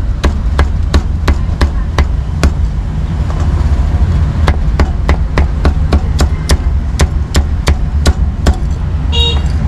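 Meat cleaver chopping roast pork and barbecued pork on a thick round wooden chopping block: sharp, steady strikes about three a second, with a short pause partway through.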